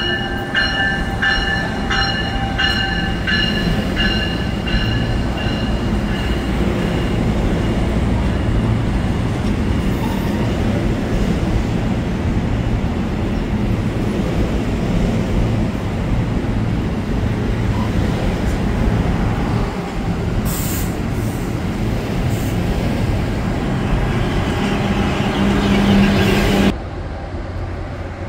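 NJ Transit commuter train, a cab car leading multilevel coaches, rolling past close by with a steady heavy rumble of wheels on rail, with squealing wheel tones and clicks in the first few seconds. The rumble cuts off suddenly near the end, leaving a quieter hum.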